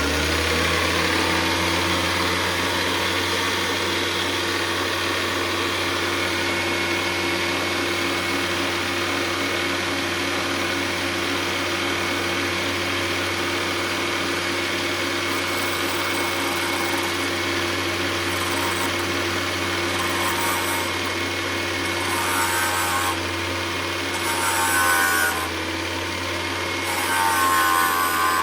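Valve refacing machine running with a steady motor hum while its grinding stone grinds the face of an engine valve. From about halfway through, the grinding comes and goes in about half a dozen short, harsher bursts with a squeal as the stone bites into the valve.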